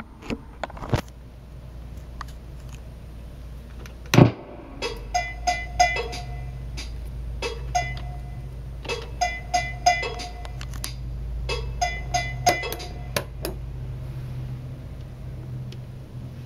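Roland TR-505 digital drum machine playing a short programmed drum pattern: a few bars of sampled drum hits, with a repeating pitched hit and crisp cymbal ticks, that starts after a loud thump about four seconds in and stops near the end. A low hum runs underneath, and a few button clicks come in the first second.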